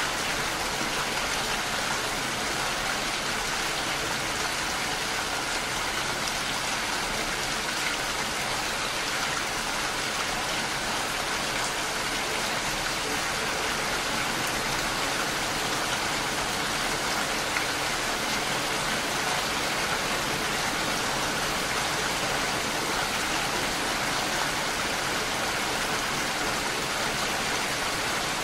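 Steady rain falling, an even, unbroken hiss that neither swells nor fades.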